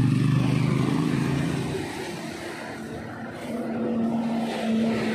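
A motor vehicle's engine running close by, its steady hum fading over the first two seconds. A fainter steady engine hum comes in about three and a half seconds in.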